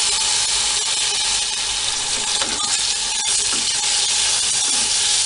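Diced pineapple sizzling in hot oil in a metal kadai, stirred with a wooden spatula. The frying hiss is steady, with small scrapes and ticks from the stirring.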